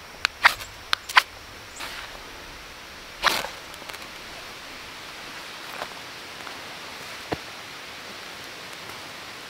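Knife shaving a wooden stick in quick, sharp strokes, four in the first second or so, then a short rustling scrape about three seconds in. After that only a steady outdoor hiss with a couple of faint ticks.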